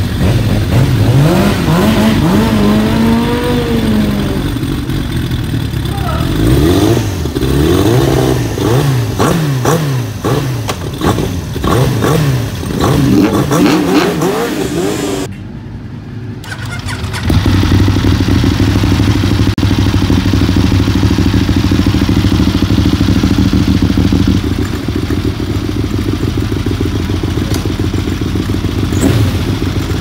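Open-exhaust Yamaha YZF750R four-cylinder race bike engines blipped repeatedly, the revs rising and falling. After a brief break, a Honda VTR1000 SP-1's V-twin settles into a steady idle.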